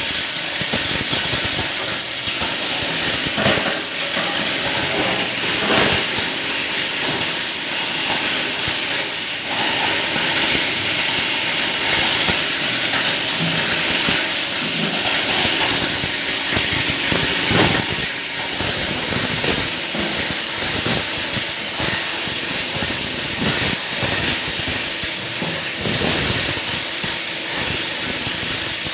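A 20-inch heavy-duty plastic scrap grinder running and chopping plastic scrap. It makes a loud, continuous machine noise with irregular cracks and clatters throughout.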